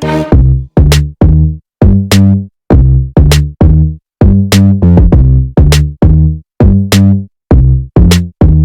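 Background electronic music with a drum-machine beat: short punchy bass-heavy hits, about two to three a second, each cut off sharply.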